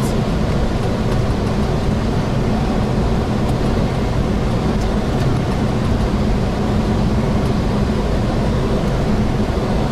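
Steady cockpit noise of a Boeing 737 on short final: airflow and engine noise with a low steady hum.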